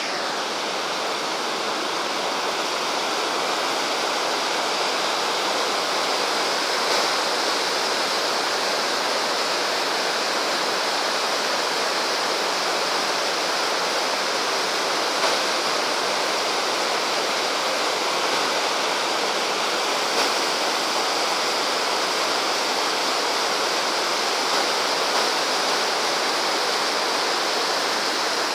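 River rapids rushing: a loud, steady roar of white water that holds even throughout.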